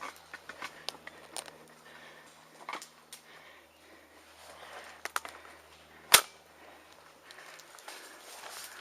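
Airsoft gun shots: a few scattered sharp clicks, then one much louder crack about six seconds in.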